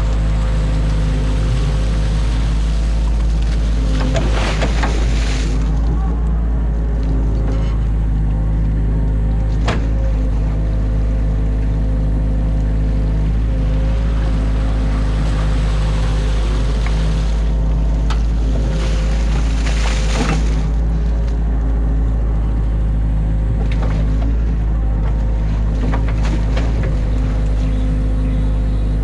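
Excavator's diesel engine running steadily, with two louder noisy stretches, around four seconds in and again near twenty seconds, and a sharp knock about ten seconds in.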